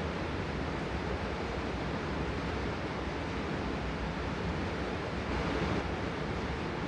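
Steady rushing wind noise on the microphone, with no shots or impacts.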